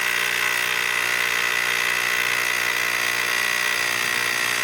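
Portable electric bike pump running steadily as it inflates a bicycle inner tube, its motor giving an even whine at a constant pitch.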